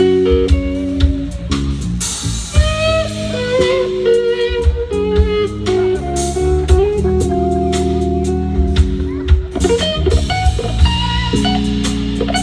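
Blues band playing an instrumental passage: an electric guitar lead with wavering, bent notes over bass guitar and a drum kit.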